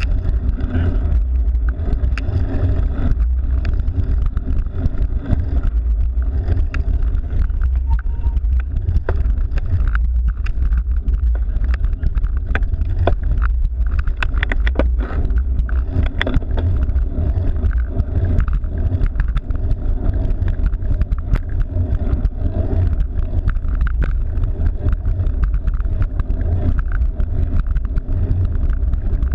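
Steady road and wind rumble heard from a moving cyclocross bike, with frequent small clicks and rattles throughout.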